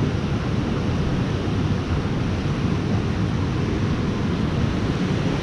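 Steady rush of a small creek's water running over rocks.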